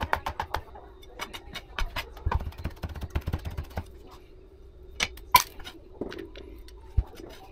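Chef's knife mincing garlic on a plastic cutting board, the blade striking the board in quick runs of about six strikes a second, then a couple of sharper knocks and a low thud as the garlic is gathered up.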